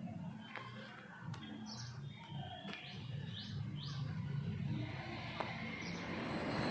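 Small birds chirping in short, separate calls over a steady low hum, with a rough, noisy rasp building up near the end.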